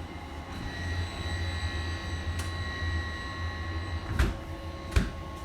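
Shipboard air handling unit fans running: a steady hum with thin whining tones above it, and two sharp knocks near the end.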